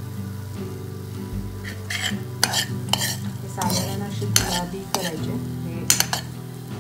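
Steel spoon stirring and scraping coriander and cumin seeds as they roast in a pan with a few drops of oil, with a light sizzle. Scattered scrapes and clicks of the spoon on the pan come from about two seconds in, over a steady low hum.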